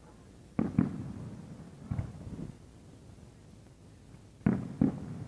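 Aerial fireworks bursting with deep bangs, each trailing off in a low rumbling echo: two in quick succession less than a second in, one at about two seconds, and another pair near the end.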